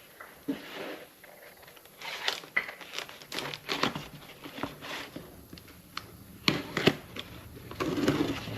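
Packaging being torn open and crumpled by hand: irregular crinkling and tearing as a mailed parcel holding a new head gasket is unwrapped.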